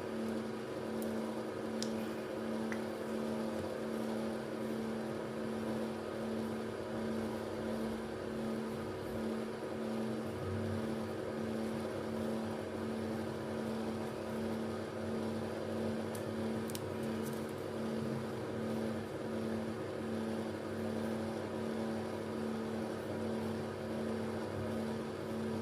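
A steady machine hum with several even tones and a slow, regular throb about one and a half times a second. A couple of faint ticks sound over it.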